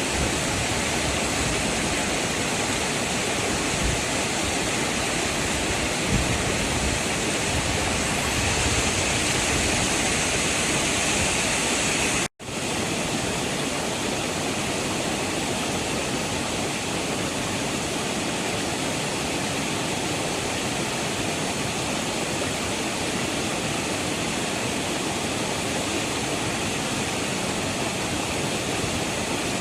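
Waterfall rushing in a steady, loud roar of falling water. The sound cuts out for an instant about twelve seconds in, then resumes slightly quieter.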